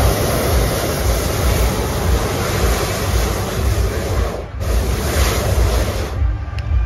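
Hot air balloon's propane burner firing in long blasts, a loud steady rushing hiss that breaks off briefly about four and a half seconds in and again near the end. Wind rumbles on the microphone underneath.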